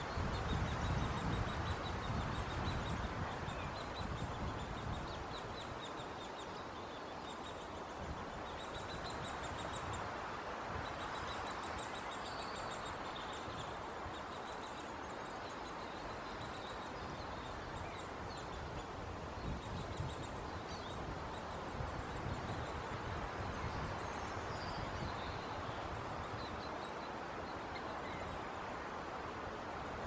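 Runs of rapid, high-pitched ticking chirps from small birds, over a steady rushing background noise.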